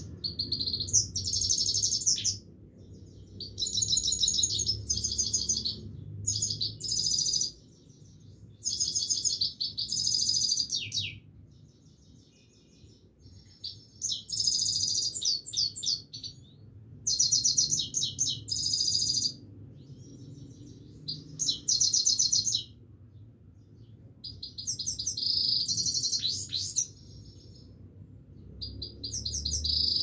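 Himalayan (grey-crowned) goldfinch singing: repeated phrases of rapid, high twittering and trills, each a second or two long, broken by short pauses.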